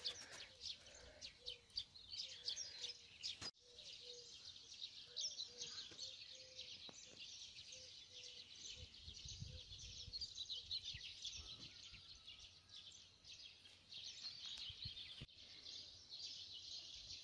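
Many small songbirds chirping and singing together in a dense chorus, with a faint low note repeating underneath in the first half.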